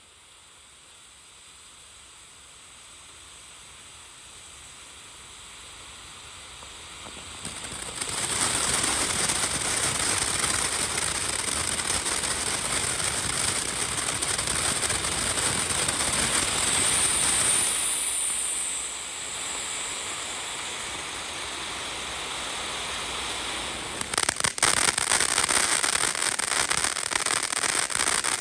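Firework fountain (Planet X Bermuda Triangle, 500 g) spraying. A faint hiss builds over the first several seconds and turns into a loud, steady hissing spray about eight seconds in. That spray eases a little about two-thirds of the way through, and near the end dense crackling pops set in over the hiss.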